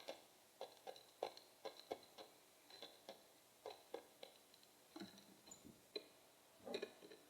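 Irregular light taps and clicks, about two a second, of feeding at a bird feeder: seed being pecked and cracked close to the microphone.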